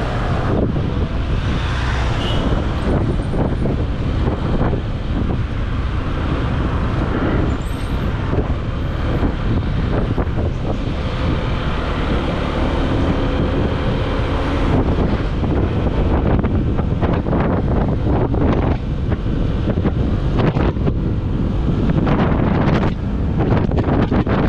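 Riding noise on a Honda ADV 150 scooter: wind buffeting on the microphone mixed with engine, tyre and traffic noise. The buffeting gets choppier in the second half as the road opens up.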